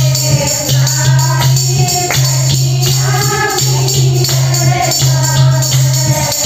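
Women singing a Haryanvi devotional bhajan together, with a steady jingling percussion accompaniment.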